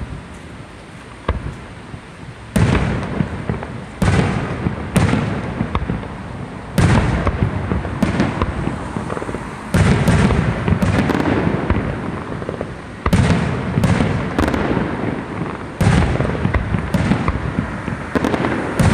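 Aerial fireworks bursting overhead one after another: about seven loud bangs a second or two apart, each followed by a long fading rumble, after a quieter start with a small pop.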